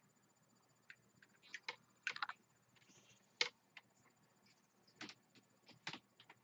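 Faint, scattered clicks and taps of cables and small plastic cable-management pieces being handled on a desk, with a cluster about two seconds in and the sharpest click about three and a half seconds in.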